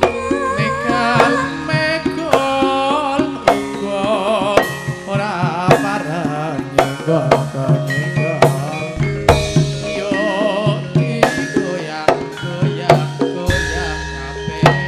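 Javanese gamelan music for tayub dancing: regular hand-drum strokes over held tones of the ensemble, with a woman singing a wavering line with strong vibrato.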